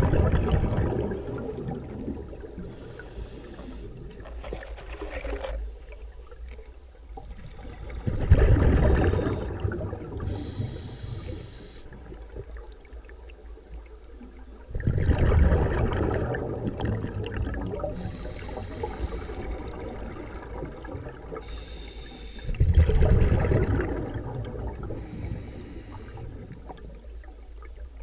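Scuba diver's regulator breathing heard underwater. A rumbling rush of exhaled bubbles comes four times, about every seven seconds, and a short hiss of inhalation falls between each pair.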